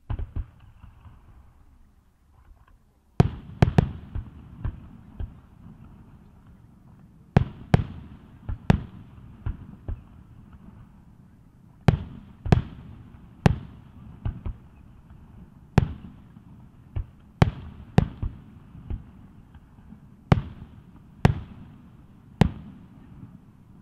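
Aerial fireworks shells bursting in a string of about sixteen sharp booms. They come at irregular intervals, often two or three in quick succession, and each one trails off.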